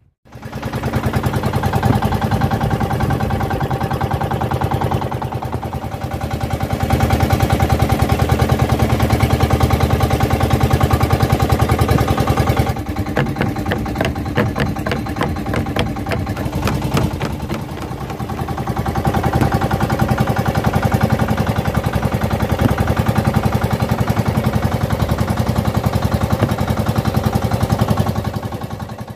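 Small fishing-boat engine running with a fast, even putter, growing louder and softer a few times.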